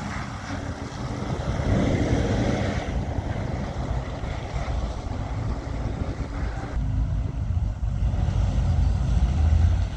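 Classic car engines running as rally cars move off, over a low rumble of wind on the microphone.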